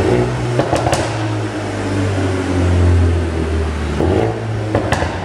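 Mercedes-AMG A35's turbocharged 2.0-litre four-cylinder running at fairly steady revs through a full Akrapovič exhaust with the particulate filter removed. A few short sharp cracks come about a second in and again near the end.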